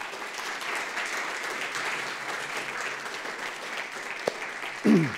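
Audience applauding: many hands clapping together in a steady, even spread that begins to thin out near the end.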